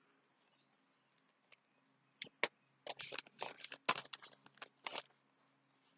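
A taped parcel's wrapping being torn open: two sharp clicks a little after two seconds in, then a run of short ripping and crinkling sounds for about two seconds.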